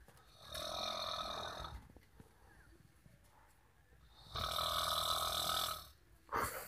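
A sleeping person snoring: two long snores about four seconds apart, then a short one near the end.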